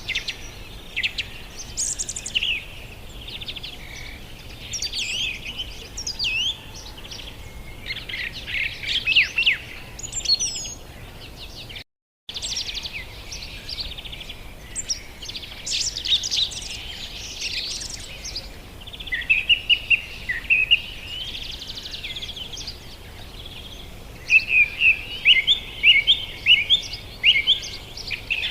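Small parrots chirping and chattering: many short, quick, sliding calls overlapping, with fast runs of repeated chirps in the second half. The sound cuts out completely for a moment about twelve seconds in.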